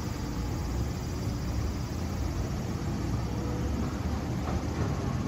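Steady city street noise: a low, even rumble of road traffic with no distinct passing vehicle.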